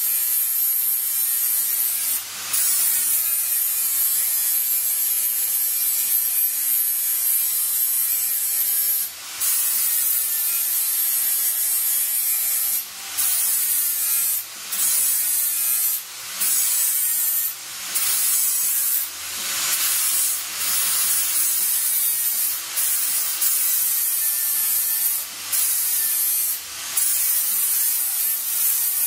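Small high-speed power tool whining and hissing as it works the edge of a sheet-steel panel, with a brief pause every few seconds.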